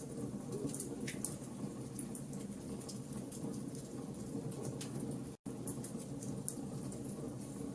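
Wood fire in a fireplace crackling: a steady low rush of flame with sharp pops and snaps scattered irregularly through it. About five seconds in, the sound drops out to silence for a split second.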